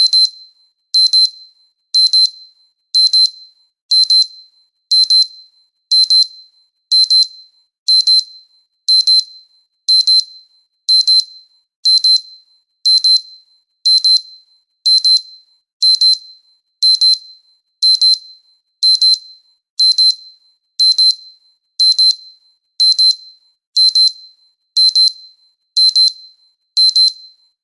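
A short, high-pitched electronic beep repeating evenly about once a second, each beep fading away quickly.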